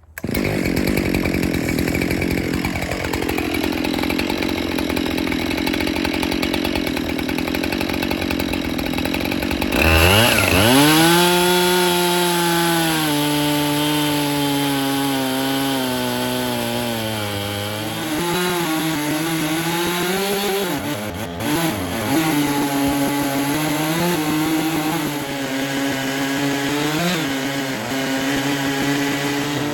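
Chainsaw in an Alaskan chainsaw mill running at high revs while ripping a thick slab from a white oak log. About ten seconds in, the sound changes abruptly, and from there the engine note keeps dipping and recovering as it works under load in the cut.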